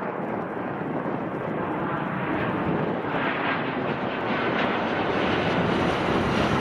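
Boeing 737-800's CFM56-7B jet engines on landing approach: a steady rushing roar that grows louder as the airliner comes overhead, with a faint high whine in the latter half.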